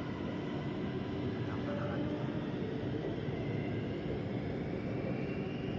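Inside a Bangkok MRT Blue Line metro train pulling away on elevated track: steady running rumble and wheel noise, with a faint motor whine rising in pitch as the train gathers speed.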